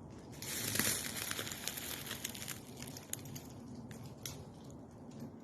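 Dense crackling patter like sleet: many small seed pods dropping through branches onto dry leaf litter. It is thickest for the first couple of seconds, then thins to scattered ticks.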